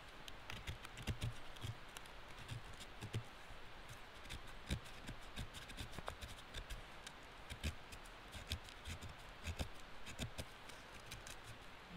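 Knife blade shaving thin curls of wood off a stick resting on a wooden board, cutting feather-stick shavings for fire tinder: a quiet run of short, irregular scraping clicks.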